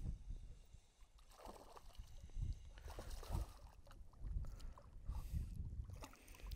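A perch splashing and thrashing at the lake surface as it is reeled in on a spinning reel, with scattered light clicks and short splashes over a low gusty rumble.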